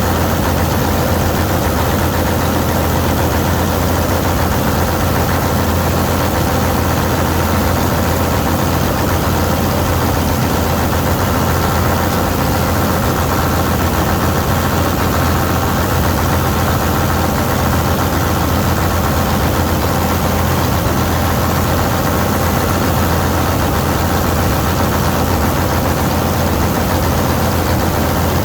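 Vistula KZB-3B combine harvester running steadily while mowing grain: a loud, even engine drone with a strong low hum that does not change.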